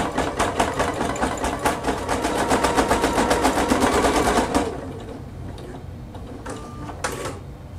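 EverSewn Sparrow X2 sewing-and-embroidery machine stitching out an embroidery design, a rapid, even run of needle strokes that stops about four and a half seconds in as the design finishes. A couple of short clicks follow near the end.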